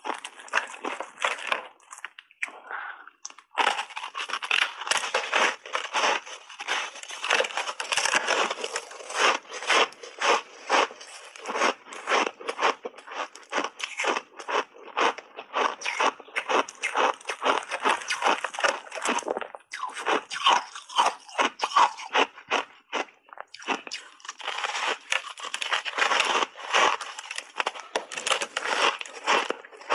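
Block ice coated in matcha and milk powder being bitten and chewed right at a lapel microphone: dense, rapid, sharp cracking crunches, broken by a few brief pauses.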